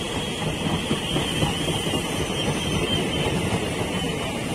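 Indian Railways passenger coaches rolling past: a steady rumble of steel wheels on the rails.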